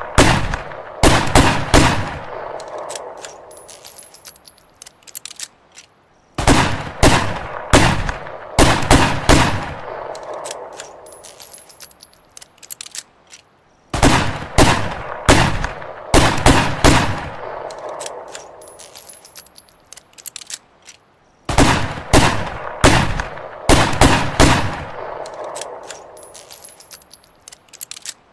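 Ruger Redhawk revolver firing rapid strings of several shots, each string trailing off in a ringing echo. The strings repeat about every seven and a half seconds, four times.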